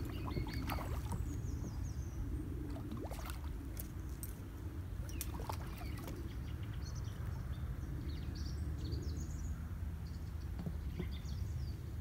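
Wind buffeting the microphone in a steady low rumble, with a few faint clicks and short, high bird chirps now and then.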